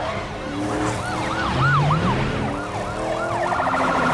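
Police car sirens wailing in quick up-and-down sweeps, switching to a fast pulsing warble about three and a half seconds in.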